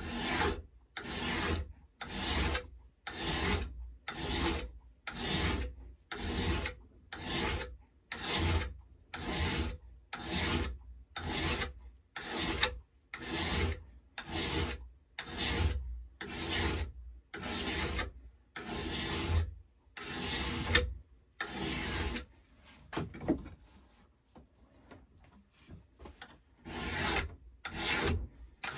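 Hand file pushed across the steel blade of a paper cutter clamped in a bench vise, in regular rasping strokes about one a second. The strokes are flattening the blade's face square to 90 degrees so that it shears instead of folding the paper. The strokes stop for a few seconds near the end, with only a few light scrapes, then start again.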